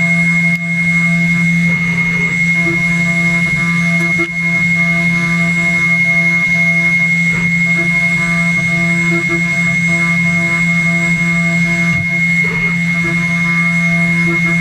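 CNC router spindle running at a steady speed while cutting, giving a constant high whine over a low hum, with slight stuttering changes in the middle tones as the machine moves.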